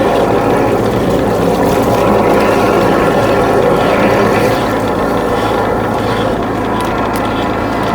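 High-pressure drain-jetting machine running steadily: a motor-driven pump hums while water jets through the drain pipe.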